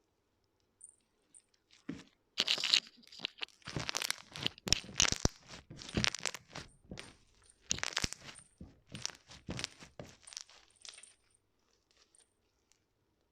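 Foam-ball cloud slime being squeezed and worked by hand: a dense run of crunchy crackles and pops that starts about two seconds in and dies away near the end.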